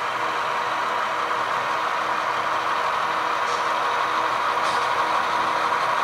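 HO scale model diesel locomotives running past with their sound decoders playing a steady diesel engine drone through small onboard speakers. A couple of faint ticks come in around the middle.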